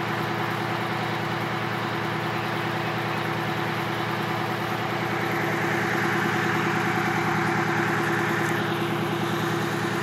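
Fire engine idling with a steady engine pulse and a held hum, growing a little louder about six seconds in.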